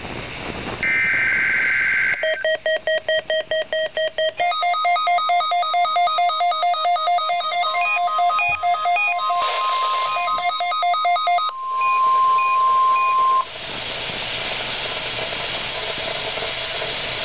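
NOAA Weather Radio weekly test received on weather radios. A short burst of SAME digital header tones is followed by a radio's alert beeping rapidly, then a denser, more melodic beeping alarm. Partway through, the steady 1050 Hz warning alarm tone comes in, then cuts off abruptly, leaving radio static hiss.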